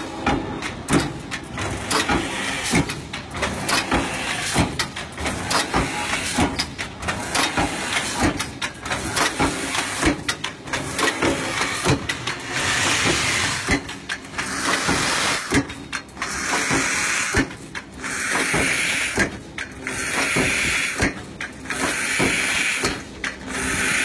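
CNC pipe punching press repeatedly punching holes through square steel tube, a rapid run of sharp metal strikes. From about halfway on, bursts of hissing about a second long come and go between the strikes.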